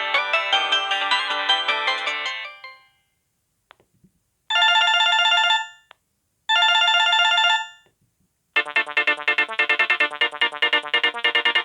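Samsung SGH-X660 mobile phone ringtones played one after another. A melody fades out in the first three seconds. After a faint click come two identical ring bursts of about a second each, two seconds apart. Then a fast electronic dance-style ringtone starts about eight and a half seconds in.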